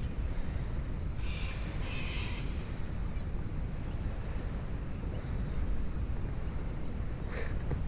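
Wind rumbling on the microphone, with a bird calling twice a little after a second in and faint chirps later. A short knock near the end.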